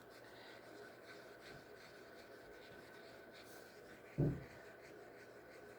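Quiet room tone with a faint steady high-pitched hum and a brief low voiced sound about four seconds in.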